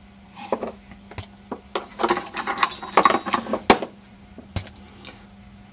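Scattered metallic clinks, clicks and knocks of metal parts being handled, busiest in the middle, with one sharp click about four seconds in, over a faint steady hum.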